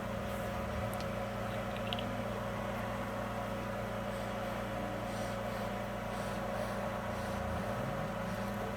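Steady background hum of a running fan or appliance, with a few faint ticks.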